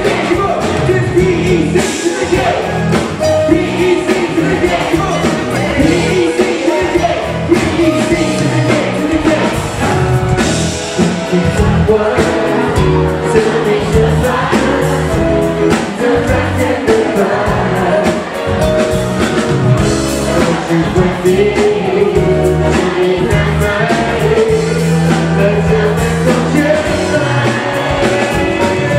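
Live band music with a male lead singer, amplified through the venue's sound system: a continuous song with a steady beat under the vocal melody.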